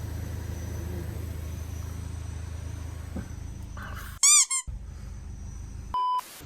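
A low steady hum, broken a little past halfway by a loud half-second run of rapid, high squeaky chirps, then a short flat beep near the end. During both the chirps and the beep the background drops out completely, as when sound effects are edited in.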